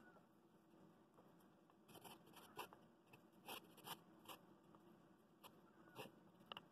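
Faint, short scrapes and light clicks, scattered from about two seconds in: a wooden bowl and its base being handled while glue is spread on them.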